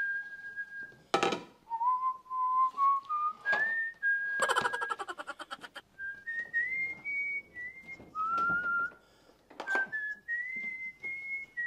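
A person whistling a slow tune in held, stepped notes, with knocks and clatter of kitchenware being handled, including a quick rattle about four and a half seconds in.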